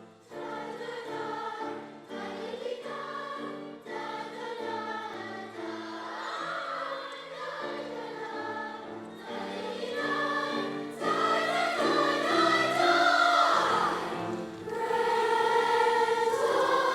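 A choir singing sustained sacred music in phrases with short breaks, growing louder about ten seconds in.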